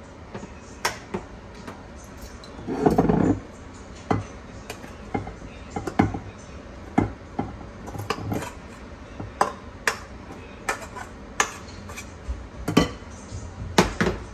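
A metal spoon scraping and knocking against an aluminium pot as cooked rice is scooped out into a bowl: a run of sharp clinks and scrapes, with a longer, louder scrape about three seconds in.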